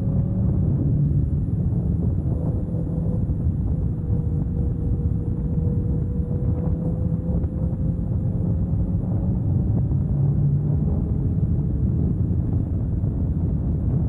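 Riding motorcycle: wind rushing over the helmet-mounted microphone, with the engine's hum underneath, its pitch drifting slowly up and down.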